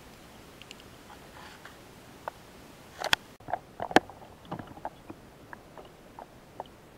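Underwater handling noise from a spearfisher's gear: scattered clicks and knocks over a steady hiss, with a cluster of louder, sharp knocks about three to four seconds in as the view swings over.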